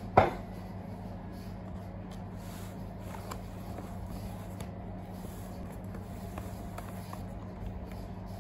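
A sharp knock just after the start, then faint rustles and light taps from a nonwoven shopping bag and a small cardboard box being handled, over a steady low hum.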